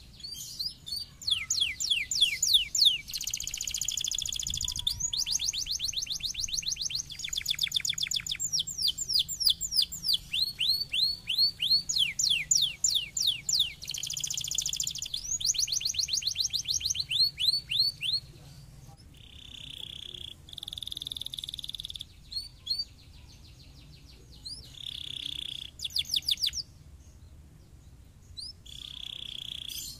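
Domestic canary singing: rapid trills of repeated falling notes, with buzzy rolls between them. The song runs almost without a break through the first half, then turns to shorter phrases with pauses.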